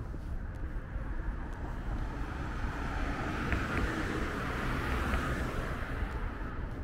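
A car driving past on the street, its tyre and engine noise swelling to a peak about four to five seconds in and then fading.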